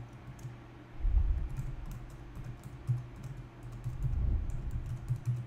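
Typing on a computer keyboard: irregular quick key clicks as an email address is entered. Under them runs a low steady hum, with louder low bumps about a second in and again around four seconds.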